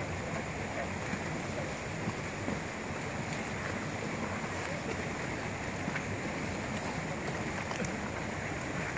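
Steady rushing outdoor background noise with a few faint clicks.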